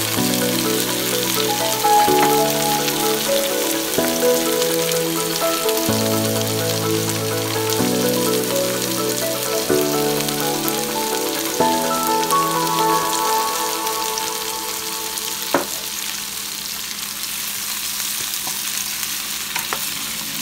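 Onions, garlic and tomatoes sizzling in hot oil in a nonstick pan, a steady frying hiss. Soft background music with sustained chords changing about every two seconds plays over it for the first half, then fades, leaving mostly the sizzle, with one sharp tap a few seconds later.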